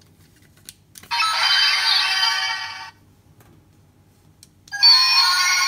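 Electronic sound effects played through the small speaker of an Ultraman Orb Ring transformation toy: a chiming synth burst of about two seconds, then a second burst starting near the end, each just after a faint click.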